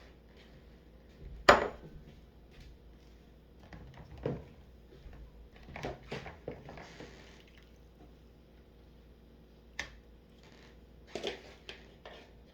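Dishes, glasses and cutlery clinking and knocking together as they are washed by hand in a bowl of soapy water, with a little sloshing. Scattered sharp clinks, the loudest about a second and a half in.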